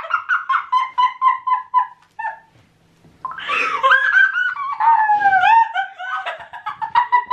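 Two girls laughing hard: quick repeated high-pitched laughs, a pause of about a second near the middle, then louder laughter again.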